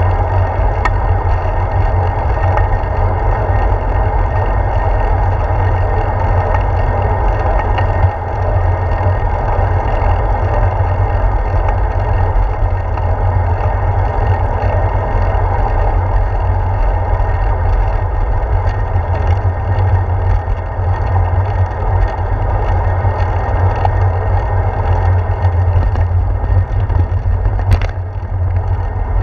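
Steady low rumble of wind and road noise picked up by a handlebar-mounted action camera on a bicycle rolling along a paved path, with a single knock near the end.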